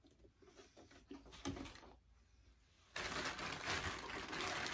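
Quiet handling with a soft knock about a second and a half in, then steady rustling from about three seconds in as a shopping bag is lifted from the floor.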